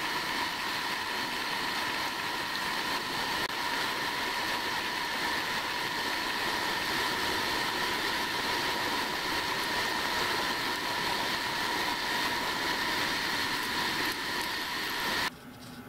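Milling machine running, its end mill cutting a pocket in a brass slide valve: a steady whine over a cutting hiss, which stops abruptly near the end.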